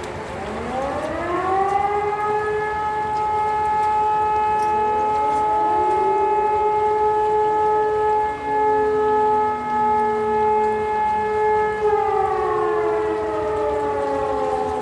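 Hörmann E57 electro-mechanical fire siren, heard from about 400 m away, sounding one blast of the "Feueralarm" test signal: it winds up over the first couple of seconds, holds a steady tone for about ten seconds, then starts to wind down near the end. A fainter second siren winds up in the background about five seconds in.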